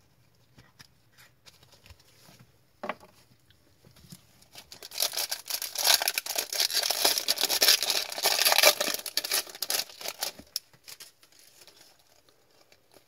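Foil wrapper of a hockey card pack being torn open and crinkled by gloved hands. It is loud for about five seconds from about five seconds in, then gives way to soft rustling as the cards are handled.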